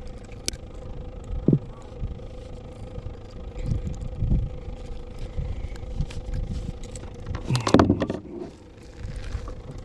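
A large black drum handled on an angler's lap in a kayak: low rumbling rubbing and handling noise, a short low croak about a second and a half in, and a louder burst of handling noise near the end.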